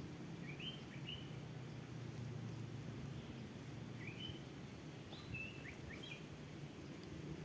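A small bird chirping: short rising chirps in three brief clusters, over a steady low rumble.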